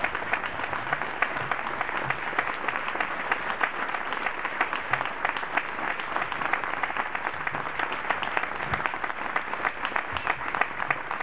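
Crowd of people applauding steadily and continuously, many hands clapping at once.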